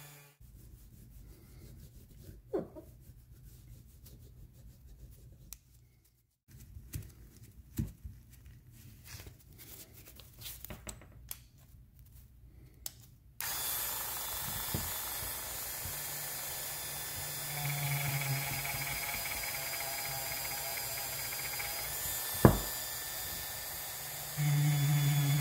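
Handheld Dremel rotary tool with a small felt buffing wheel polishing a golf iron head with buffing compound, in separate stretches. The first half is quiet, with small clicks from handling the tool and club. About halfway through a steady hiss sets in, a motor hum comes up for a few seconds, and there is one sharp knock; shortly before the end the rotary tool's motor hum comes on strongly.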